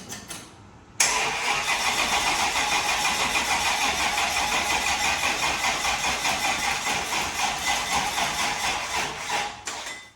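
Pontiac 400 V8 of a 1969 GTO starting about a second in, then running steadily with a fast, even pulse of exhaust. It cuts off suddenly at the end.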